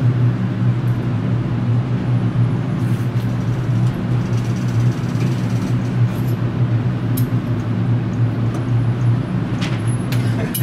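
Steady low mechanical hum of an indoor shooting range's ventilation and motorised target carrier running, with a few faint clicks.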